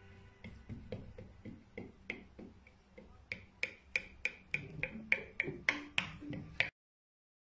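Background music in a sparse, percussive passage: sharp finger-snap-like clicks, about three a second, getting louder partway through, with a few low notes beneath them. It cuts off abruptly to silence about a second before the end.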